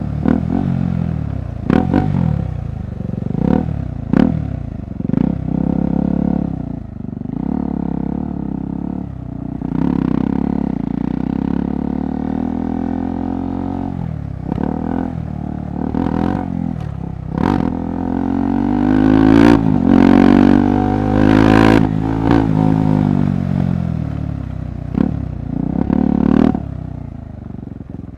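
KTM 390 Adventure's single-cylinder engine pulling and revving up and down through the gears on an off-road trail, its pitch climbing in long sweeps several times. Sharp clattering knocks break in every second or two over the rough ground.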